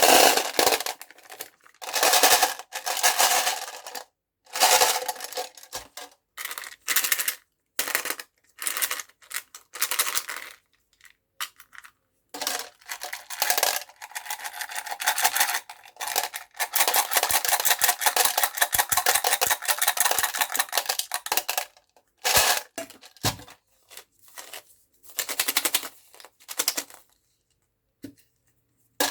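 Hard candies clattering against a metal box as they are poured in and shaken, in many short bursts of rattling that break off into sudden silence, with a longer unbroken rattle from about 17 to 21 seconds in.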